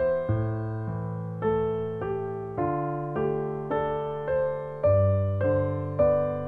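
Background music: a slow, gentle piano melody with chords, notes struck about twice a second and left to ring.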